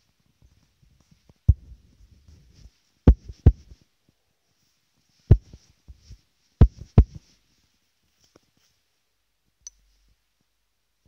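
Dull thumps of fingertip taps on a phone's touchscreen, picked up through the phone's own microphone: about six sharp taps, some in quick pairs, with soft rubbing and handling noise between them and one small click near the end.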